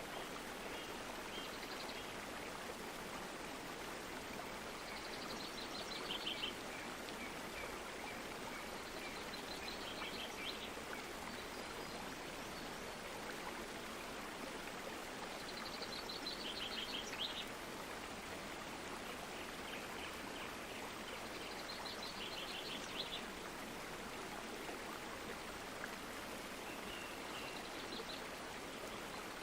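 Stream water flowing steadily, a constant rushing. Short high trilled bird phrases come in over it every five or six seconds.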